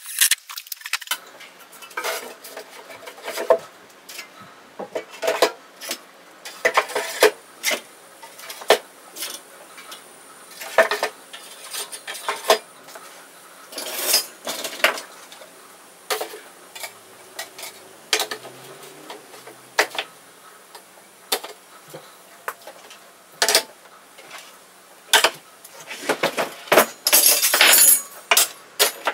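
Metal drywall hand tools clinking and knocking against each other and against a plywood toolbox and workbench as they are picked up and set down: irregular sharp clatters, thickest near the end.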